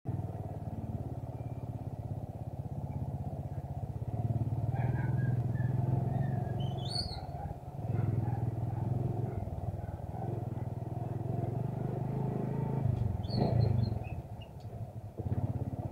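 Motorcycle engine running while riding over a rough dirt track, its note easing off briefly about eight seconds in and again near the end. A few short high chirps sound over it.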